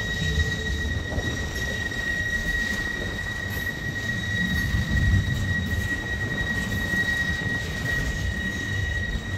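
Boxcars of a CSX manifest freight train rolling past: a low rumble of wheels on rail, with a steady high-pitched wheel squeal held on one pitch throughout.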